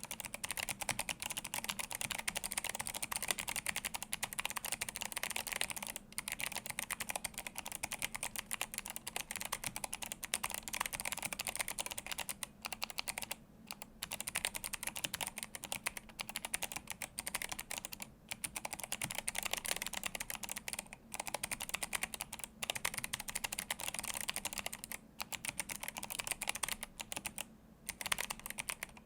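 Fast continuous typing on a handwired Atreus62 mechanical keyboard with Kailh Box Jade clicky switches and blank PBT keycaps: a dense run of sharp, bright clicks, broken by several short pauses.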